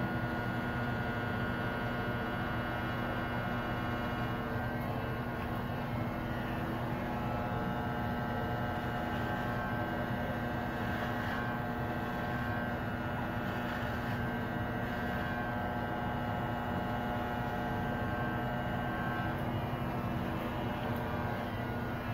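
Electric hair clippers running with a steady buzz during a haircut.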